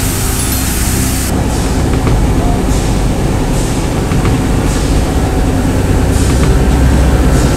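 Industrial machinery running in an expanded-polystyrene foam factory, loud and continuous. It starts as a steady hum with steam hissing, then changes abruptly about a second in to a denser rumble with a hiss that swells roughly once a second.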